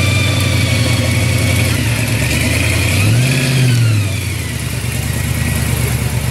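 Supercharged V8 of a 1969 Chevrolet Camaro pro street car running at low speed, blipped once about three seconds in so the pitch rises and falls, then a little quieter as the car pulls away.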